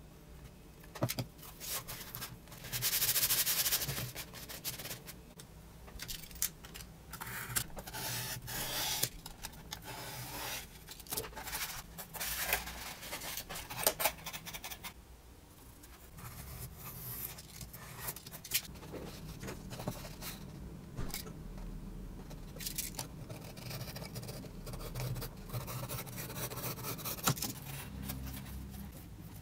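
Cardboard panels being handled, folded and slid against each other and the cutting mat: irregular rubbing and scraping with scattered clicks and taps, the longest rubbing stretch about three seconds in.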